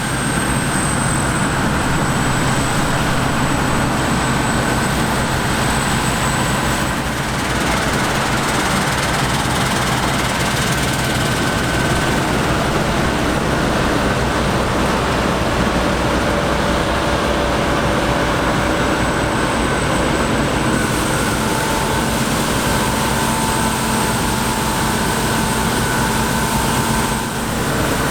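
Heavy harvest machinery running steadily: a deep diesel engine drone with high, steady mechanical whines. The whine changes pitch about a third of the way in and again later, and the level dips briefly near the end.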